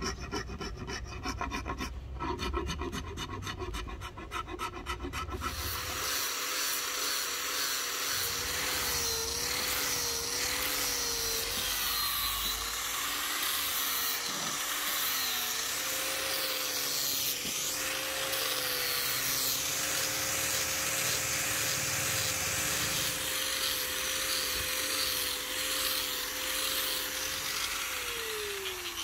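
A hand file rasping along a rosewood axe handle in repeated strokes. About five seconds in, an angle grinder with a sanding disc takes over, sanding the handle. Its motor tone wavers as the disc is pressed and moved along the wood, then holds steady, and it winds down near the end.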